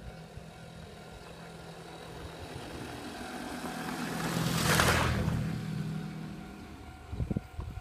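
A road vehicle passing close by: its noise swells to a peak about five seconds in, then fades. A low hum runs underneath, and there are a couple of low thumps near the end.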